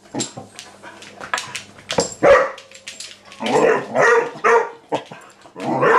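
Vizsla puppy barking in short bursts: one bark about two seconds in, a quick run of barks from about three and a half seconds, and another near the end, with sharp clicks in between.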